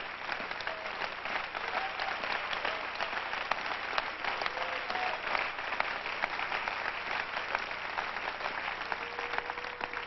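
A large congregation applauding steadily, dense clapping that carries on without a break.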